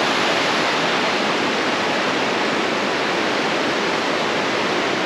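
Steady rush of whitewater rapids on the upper Sacramento River, an even hiss without breaks.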